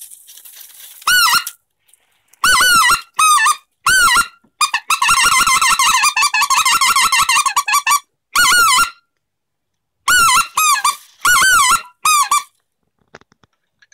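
Duck Commander Goose Commander specklebelly goose call being blown: high, yodeling two-note yelps in short groups with pauses between, imitating the laughing call of the white-fronted goose. About halfway through comes one long run of rapid chattering notes.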